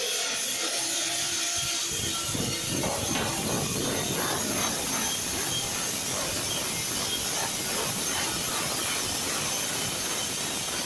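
Many hand files and hacksaws working metal held in bench vises at once, a dense overlapping rasping of strokes that thickens about two seconds in, over a steady hiss.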